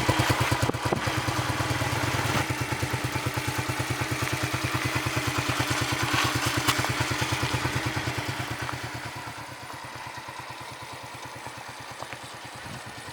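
Yamaha Crux's small single-cylinder four-stroke motorcycle engine running with an even, rapid firing beat, the restored bike running again after reassembly. The engine sound fades noticeably about eight seconds in and stays quieter to the end.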